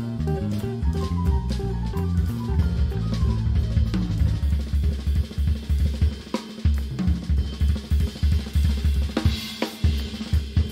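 Jazz drum kit playing busy, fast fills on snare and bass drum with rimshots and a cymbal wash near the end. Over the first few seconds the electric guitar and bass lines of a live jazz band still carry on beneath it.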